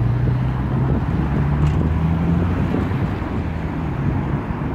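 A vehicle engine running, its pitch rising a little about halfway through and then fading near the end, with wind buffeting the microphone.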